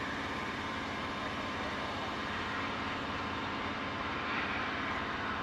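Pilatus PC-24's twin Williams FJ44-4A turbofans at approach power as the jet comes in to land: a steady jet rush with a thin whine, growing a little louder about four seconds in as the aircraft nears.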